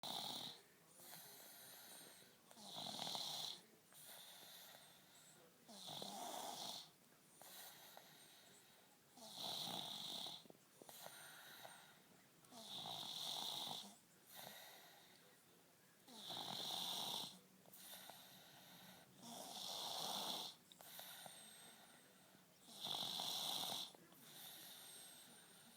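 Steady, rhythmic snoring: a snore about every three to three and a half seconds, with a quieter breath between each.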